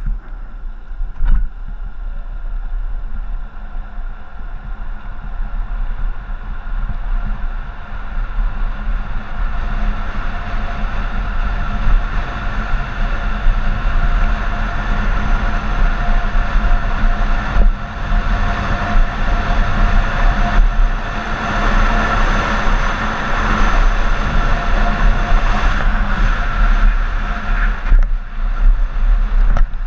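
Wheels of a racing Bobby-Car rolling fast downhill on asphalt: a steady rumble with a faint whine, growing louder as speed builds.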